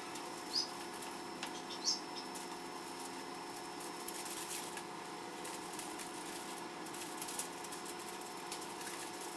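Aluminium foil crinkling and rustling as hands press and fold pizza dough over it, with soft pats of the dough and two louder sharp crinkles about half a second and two seconds in, over a steady faint hum.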